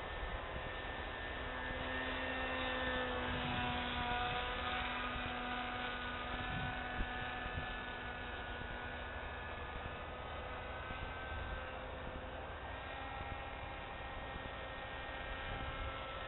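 Motor and propeller of a radio-controlled Siebel 201 scale model airplane humming at a distance, a few steady tones drifting slowly up and down in pitch as it flies around.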